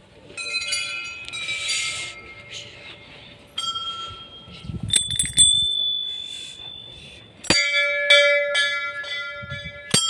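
Hanging temple bells being struck by hand, several times over with bells of different pitch, each strike ringing on. The loudest and deepest bell is struck about three-quarters of the way in, followed by a quick run of further strikes.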